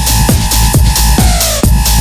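Electronic dance music (techno / tech house): a steady four-on-the-floor kick drum a little more than twice a second under hi-hats and a held synth note. About halfway through, a synth line glides downward.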